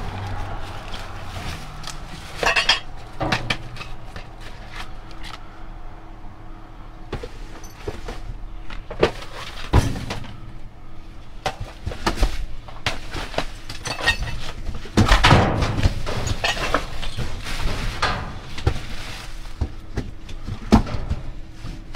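Rummaging through trash in a dumpster: irregular clattering, knocking and rustling as discarded items are pushed aside and picked up.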